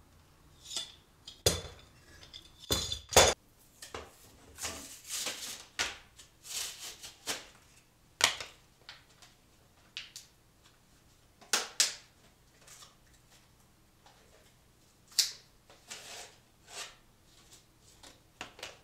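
Irregular metallic clinks, taps and knocks as a metal saw frame and its blade are handled and set down against a wooden stool and board, the sharpest knocks about a second and a half, three seconds and eight seconds in.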